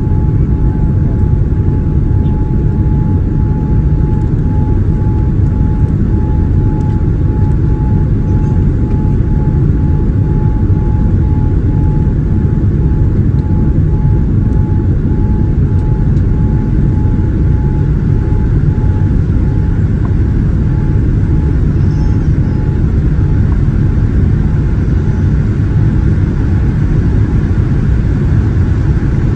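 Boeing 787-9 cabin noise: a loud, steady, low rumble of engines and airflow. A faint steady whine fades out about twenty seconds in.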